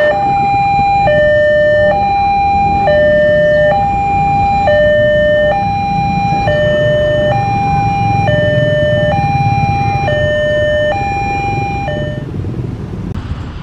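Railway level-crossing warning alarm sounding a two-tone high-low call, each tone held just under a second, over a low rumble; it cuts off near the end.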